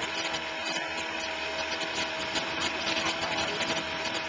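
Motorboat engine running steadily with a constant whining hum, over a steady rushing hiss.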